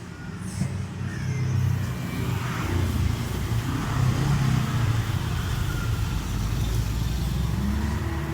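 A motor vehicle engine running steadily, getting louder about a second in.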